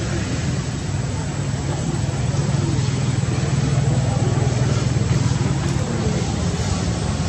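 A motor vehicle's engine running close by as a steady low hum. It grows louder through the middle and eases off near the end, as if the vehicle passes or idles nearby.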